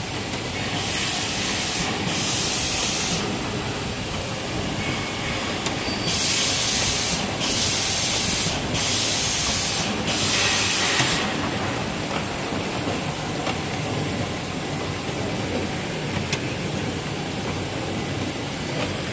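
Automatic 160 mm facial-tissue plastic-film packing machine running with a steady mechanical noise. Six loud hissing bursts of about a second each come in two groups, two near the start and four from about six to eleven seconds in.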